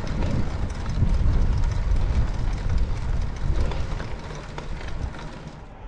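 Wind rumbling on the microphone and the hum of tyres on the road while a bicycle is ridden, easing off near the end.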